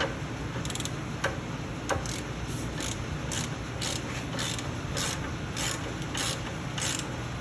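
Hand ratchet wrench clicking in short, even strokes, about one and a half a second, as a new shock-absorber mounting bolt is run in. A few single clicks come first, then the strokes settle into a steady rhythm.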